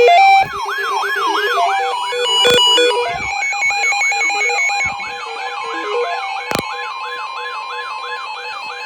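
Several emergency alert receivers sounding their alarms at once. An electronic siren repeats a falling sweep about three times a second over layered beeping tone melodies, and a steady high alert tone joins about four seconds in. Two sharp clicks cut through, about two and a half and six and a half seconds in.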